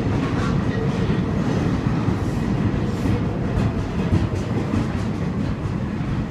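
A vintage New York City subway train of mixed-livery museum cars rolling past along a station platform. It makes a loud, steady rumble of wheels on rails, broken by repeated clicks as the wheels pass over rail joints.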